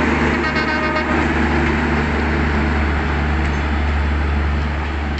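Train horn of an EMD GT42AC diesel-electric locomotive trailing off about a second in, then the steady low rumble of the locomotive and its passenger coaches running on the track.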